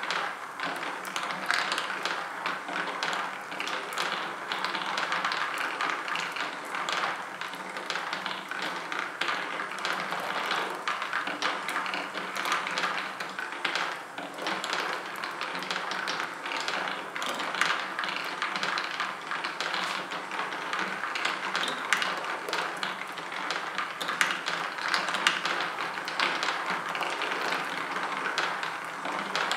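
Marble machine running: a steady stream of ticks and clicks as marbles roll and drop along its mini-golf tracks, over the constant clatter of the motor-driven marble lift.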